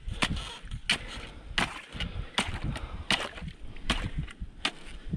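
Steel ice chisel striking and chipping ice around the rim of an ice hole, seven sharp blows at an even pace of about one and a half a second.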